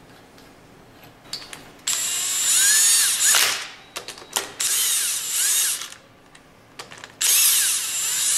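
Impact wrench with a 14 mm hex drive running down the socket-head bolts of a pump's outlet valve plate, in three runs of about a second and a half each starting about two seconds in, its motor pitch rising and falling. Light metal clicks fall between the runs.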